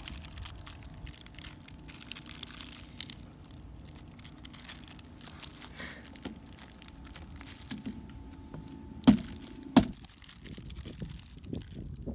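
A plastic bag crinkling and frozen finger mullets crackling as they are pried apart by hand. There are many small cracks, and two loud sharp cracks close together about nine seconds in.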